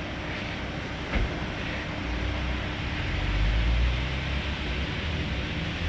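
Four-wheel-drive vehicle driving slowly over rough ground: a low engine and tyre rumble that swells in the middle, with a single knock about a second in.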